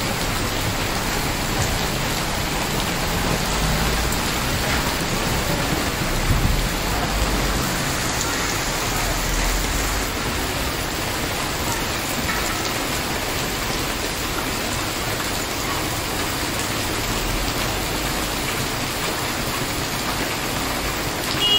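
Heavy rain pouring onto a wet street and pavement: a steady, unbroken hiss of rain.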